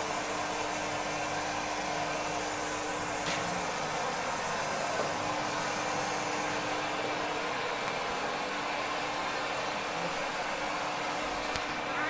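Vacuum cleaner running steadily: a constant airy whir with a steady hum of even pitch.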